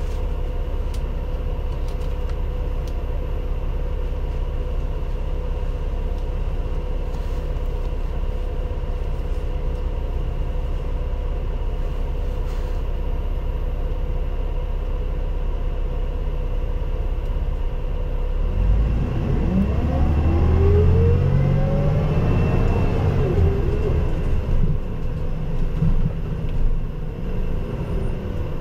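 Cabin sound of an Isuzu Erga Mio CNG city bus: a steady low engine hum while the bus stands idling, then about eighteen seconds in the engine revs up as it pulls away, its pitch climbing and falling as it accelerates through the gears.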